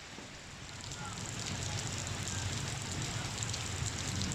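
Heavy rain falling, a dense hiss of drops, with a low rumble that grows louder from about a second in.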